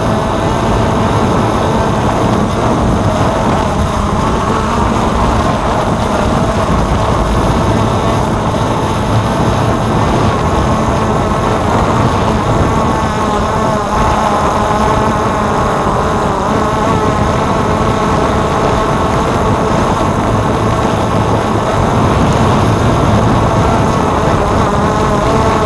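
Brushless motors and propellers of a DJI F550 hexacopter in flight: a steady, loud buzzing with several whining tones that waver slightly as the motor speeds shift.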